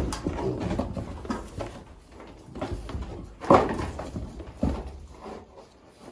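Pigs grunting at irregular intervals, the loudest grunts at the start and about three and a half seconds in.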